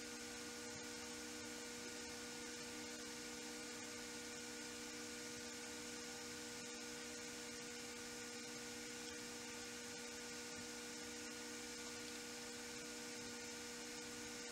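Steady electrical hum with hiss, made of several fixed tones that never change.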